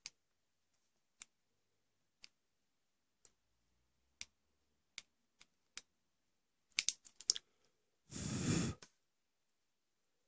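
Small, sharp clicks of a Victorinox Classic SD pocketknife being handled, spaced about a second apart, with a quick cluster of clicks a little before the end. About 8 s in there is a short, louder breathy rush of noise.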